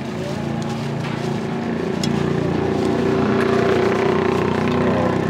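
A motor engine running steadily with a low, even hum that grows a little louder about a second and a half in.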